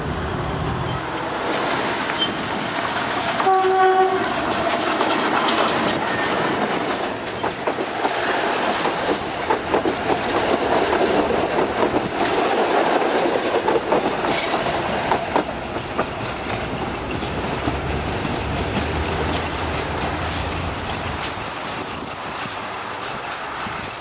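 Metre-gauge passenger train hauled by a GE U12C diesel locomotive: a short horn blast about four seconds in, then the coaches pass close by with wheels clattering over the rail joints. The clatter fades after the middle, leaving a lower rumble.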